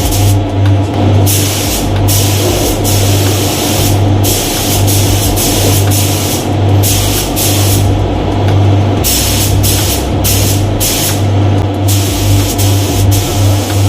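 Compressed-air paint spray gun hissing in repeated bursts as the trigger is pulled and released, over a steady low hum.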